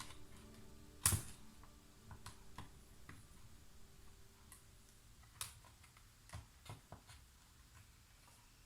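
Scattered small clicks and taps of hands handling laptop parts, with one louder knock about a second in and a few sharper clicks later on.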